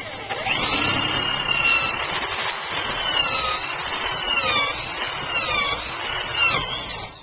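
Electric drill running with a high-speed steel bit boring into solid wood. The motor whine dips in pitch and recovers several times as the bit is pushed in and eased back to clear the chips, then stops near the end.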